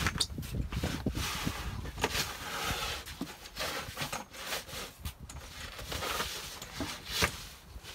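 A wheeled snow shovel's blade scraping over a concrete walk as snow is pushed and tipped off it, in irregular scrapes with knocks in between; the loudest knocks come at the start and near the end.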